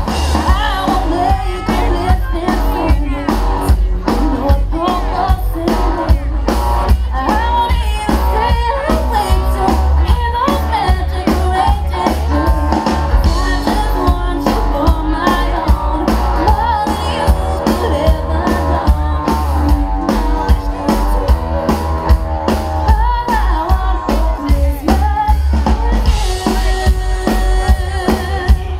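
Live band playing a song: a drum kit keeping a steady beat under guitar, with a singer's voice over the top.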